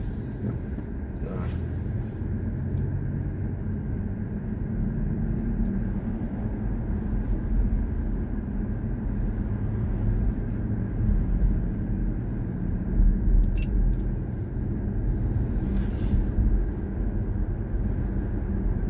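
Steady road and tyre rumble heard inside the cabin of a BMW i4 M50, an electric car with no engine note, as it drives along a town road.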